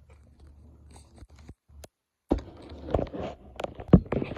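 Handling noises: scrapes, taps and knocks as a vinyl Funko Pop figure and its cardboard box are handled. The sound is faint at first, then drops to a moment of dead silence, then comes a run of sharper knocks and rustling.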